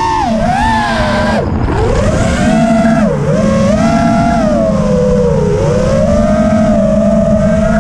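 Brushless motors and propellers of an AstroX X5 FPV racing quad whining, the pitch rising and falling with the throttle. The pitch drops sharply about a second and a half in and again near the three-second mark, then climbs back.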